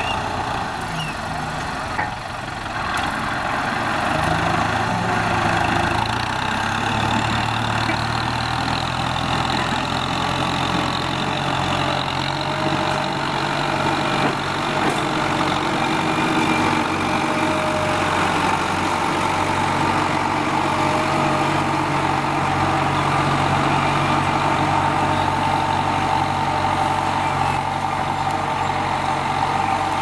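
Kubota M9540 tractor's diesel engine running steadily under load as it pulls a disc plough through dry soil, getting a little louder a few seconds in.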